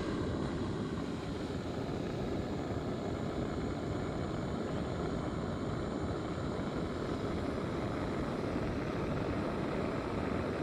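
Steady rushing noise with no distinct tones or separate events, heaviest in the low and middle range.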